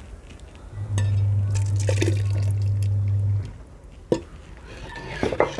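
Hot dal poured from a small iron kadhai into a metal pot of dal, splashing and dripping. A low steady hum runs from about one second to three and a half seconds in, a sharp metal clink comes about four seconds in, and a few more clinks follow near the end.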